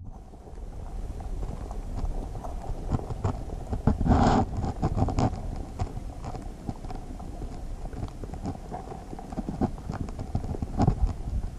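Irregular knocks and bumps picked up by a camera held underwater in the river, with a louder bump about four seconds in.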